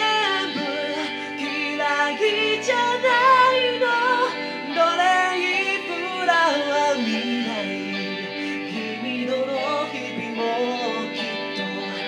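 A voice singing a pop song with reverb over a backing track, played through a handheld karaoke microphone with a built-in speaker. The sound has no deep bass.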